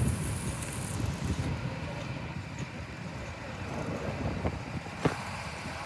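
Bumper boat motor running with a steady low rumble, wind buffeting the microphone, and a single knock about five seconds in.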